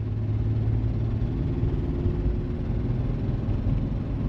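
Chevy Astro van's 4.3 V6 engine and road noise while driving, a steady low rumble. The engine has a misfire on one cylinder, which the seller puts down most likely to a bad injector.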